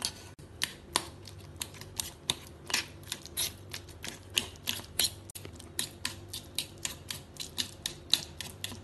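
Metal fork mashing avocado in a stainless steel bowl, its tines clicking against the bowl in quick irregular taps, about three a second.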